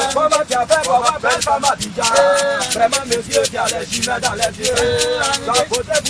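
Male voices singing over a shaker keeping a steady, fast rhythm.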